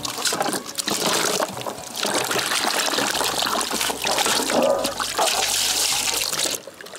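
Water splashing and pouring into a wide basin as purple brinjals are washed by hand, with short breaks about two seconds in and near the end.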